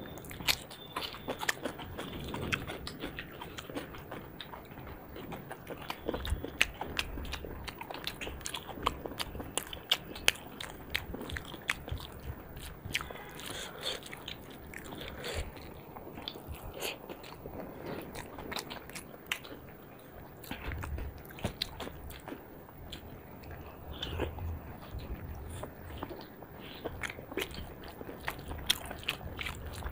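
Close-miked eating: two people chewing and biting rice and chicken curry eaten by hand, with many short, irregular wet mouth clicks and crunches.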